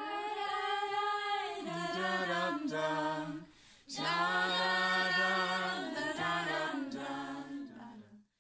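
Voices singing together without instruments, a choir-like a cappella passage in two phrases of long held notes that step in pitch. The second phrase starts about four seconds in, and the singing breaks off near the end.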